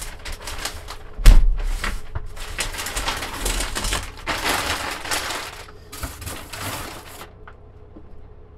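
A sharp knock about a second in, then a clear plastic packing bag crinkling and rustling as it is handled, stopping near the end.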